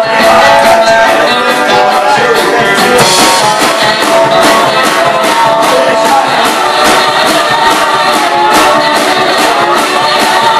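Live one-man-band rock song: a man singing over his own strummed guitar, with kick drum and cymbal keeping a steady beat.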